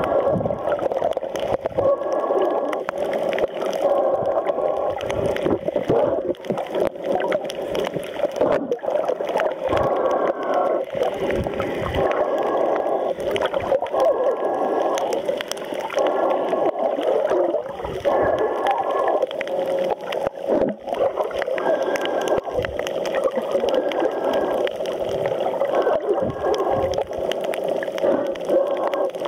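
Muffled underwater water noise picked up by a waterproof camera's built-in microphone while submerged: a steady dull sloshing and gurgling, with faint short tones coming and going.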